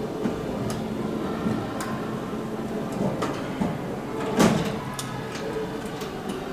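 Cleco skin pins being worked in and out of the rivet holes of an aluminium fuselage skin: a series of sharp, irregular metallic clicks, the loudest about four and a half seconds in, over a steady low hum.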